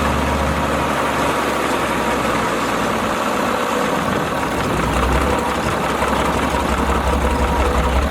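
Mercedes diesel engine of a converted Fowler BB1 ploughing engine running steadily; its low throb weakens briefly about two and a half seconds in and comes back stronger about five seconds in, with a pulsing beat near the end.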